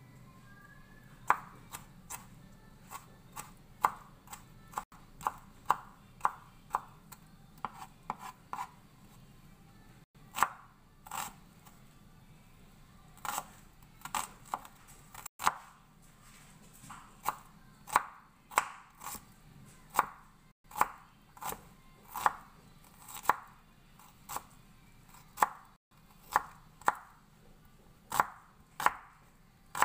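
Kitchen knife chopping tomato and red onion on a wooden cutting board: irregular sharp knocks of the blade on the board, about one or two a second, with a few short pauses.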